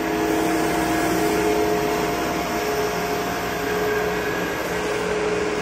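Stainless-steel colloid-mill nut-butter grinder running, its motor and rotor giving a steady hum with a few held tones over an even whirring noise.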